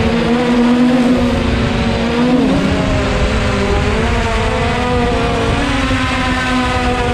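Motor and propeller of a radio-controlled aircraft in flight: a steady buzzing tone that wavers in pitch a little past two seconds in, with wind rumble underneath.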